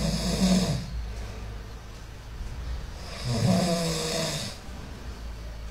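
A sleeping pit bull snoring: two long snores, one at the start and one about three seconds in. Each is a low rumble with a breathy hiss.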